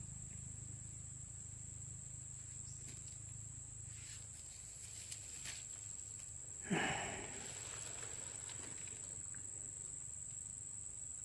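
Steady, high-pitched insect chorus like crickets, with a faint low hum beneath it. A short, soft noise about two-thirds of the way through.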